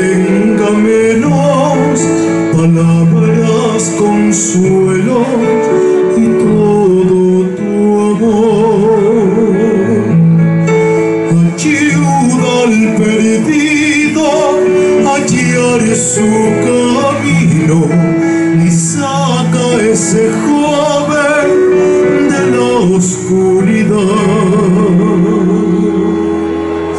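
A man singing a ballad into a microphone, with a strong vibrato on held notes, accompanied by a Korg electronic keyboard playing chords and bass, amplified through a PA.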